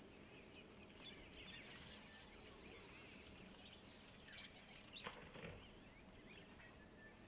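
Near silence: faint outdoor ambience with soft bird chirps and a few faint clicks around the middle.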